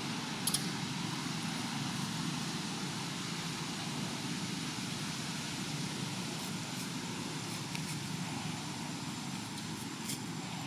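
Steady outdoor background hum with no calls, broken by a few faint, short clicks.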